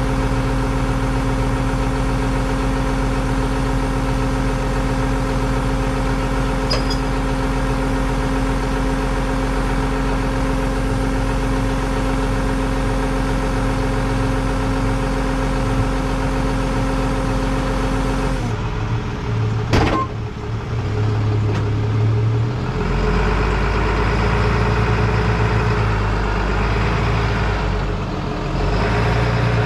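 Vehicle engine idling steadily. About two-thirds of the way through, the sound changes abruptly to a rougher, uneven engine sound, with a sharp click soon after.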